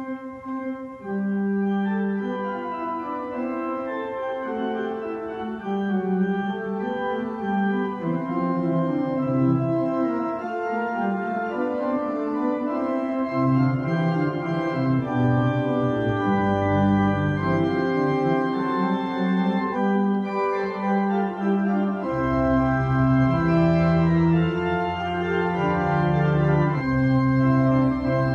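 Church organ playing a stately prelude on full organ, with held chords and moving lines. Deep bass notes come in strongly about three-quarters of the way through.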